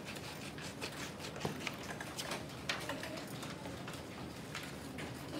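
Scissors snipping paper, several pairs at once, with paper rustling: a scatter of short, irregular light clicks and snips.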